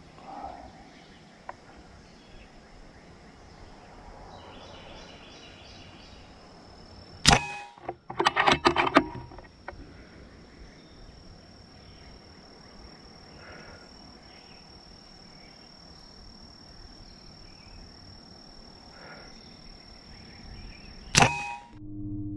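Air Venturi Avenger .25-calibre PCP air rifle firing two shots about fourteen seconds apart, each a single sharp crack. About a second after the first shot comes a quick rattle of clicks, typical of the side lever being cycled to load the next pellet.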